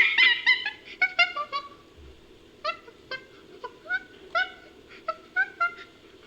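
Chimpanzee-based creature vocalization: a quick run of short hooting calls in the first second and a half, then, after a brief pause, single hoots about every half second, each rising at the end.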